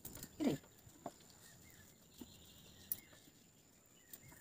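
A puppy gives one short whimper that falls in pitch about half a second in, while it is being bathed. A couple of faint taps follow, with faint high chirps in the background.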